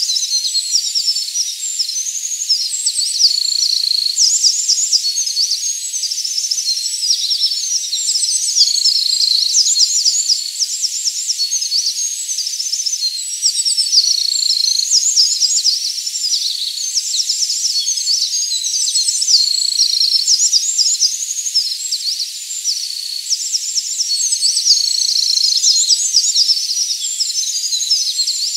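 Eurasian wren (ミソサザイ) singing: a long, loud run of very high, fast trills and rattling note series, song after song with only brief breaks.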